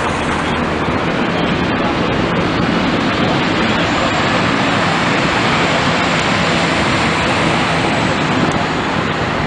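City transit bus pulling away and driving off, its diesel engine and tyres giving a steady engine-and-road noise amid street traffic.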